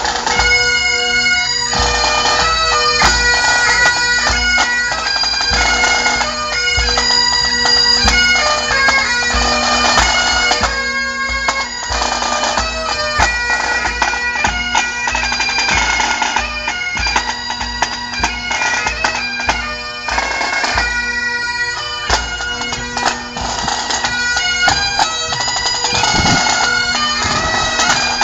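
Highland bagpipes playing a march: a shifting chanter melody over steady drones.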